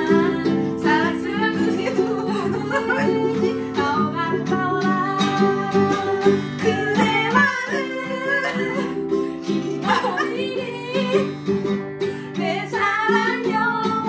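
Two people singing a Korean folk song together, accompanied by a strummed ukulele and acoustic guitar.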